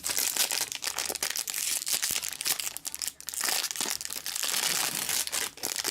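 Plastic wrapping on a trading card box crinkling and crackling as it is handled and torn open.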